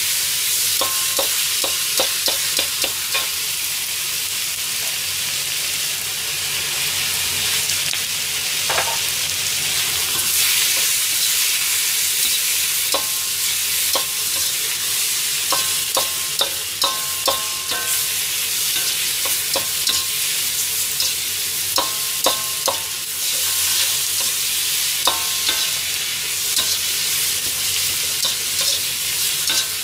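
Eggplant, onion and bean sprouts sizzling steadily as they are stir-fried in a hot wok. A metal ladle scrapes and clanks against the wok in irregular clusters of ringing strikes, several times over.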